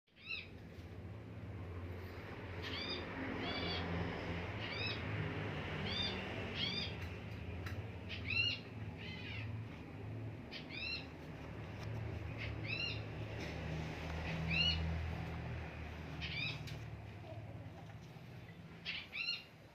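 Spotted dove chick giving short, high, arching squeaks, often in pairs, repeated every second or two, over a steady low rumble.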